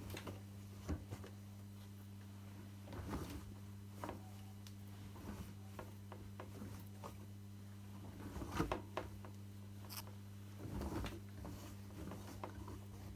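AEG Öko-Lavamat 73749 front-loading washing machine early in a 95 °C boil wash, giving a steady low hum with scattered soft clicks and rustles.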